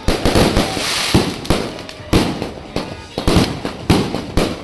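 Aerial fireworks bursting overhead: a rapid, uneven run of sharp bangs, about three a second.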